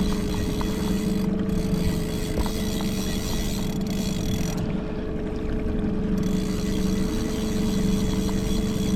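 Motorboat engine running steadily at trolling speed, an even hum with a constant tone.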